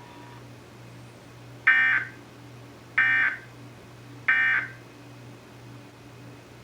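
Emergency Alert System end-of-message data bursts: three short, loud, identical warbling digital tone bursts about a second and a half apart, the signal that closes the alert.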